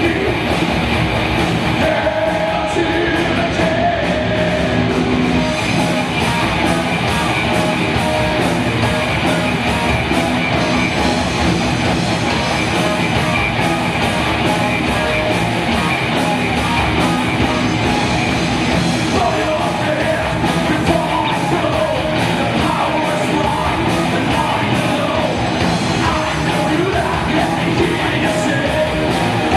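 Live heavy metal band playing: distorted electric guitars, bass and drums, with a singer's voice over the top.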